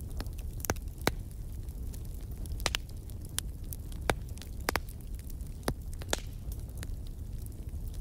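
Burning coal briquettes crackling: sharp pops and ticks at irregular intervals over a low steady rumble of the fire.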